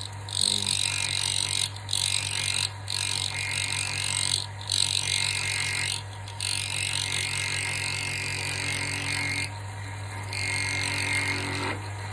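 Wood lathe running with a D-bit (gun drill) cutting sideways through a wooden block like an end mill, milling out a knife tang slot: a steady motor hum under a hissing cutting noise that breaks off briefly several times and picks up again as the bit is moved back and forth.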